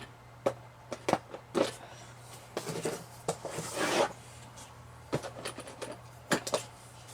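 Cosmetic products and packaging being handled and packed into a box: irregular light clicks and knocks, with a longer scraping, rustling swish between about two and a half and four seconds in.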